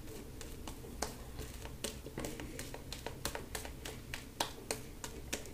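Boar-bristle shaving brush working lather onto the face and neck, making a run of faint, uneven wet clicks and pops, about three a second.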